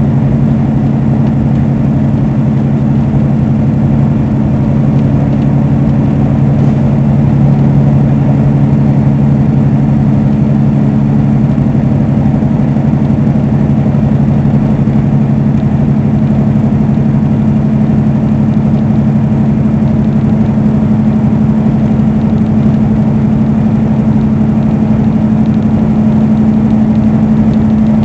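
Semi-truck diesel engine droning steadily at highway cruising speed, heard inside the cab with road noise. A steady two-tone hum whose lower tone fades out about twelve seconds in.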